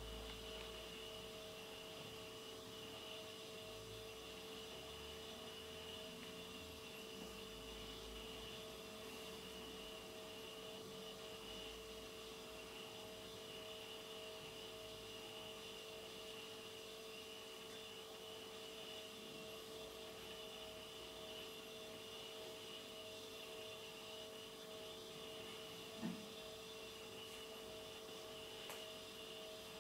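Quiet room tone: a faint steady electrical hum with a higher whine over low hiss, and a single soft tap near the end.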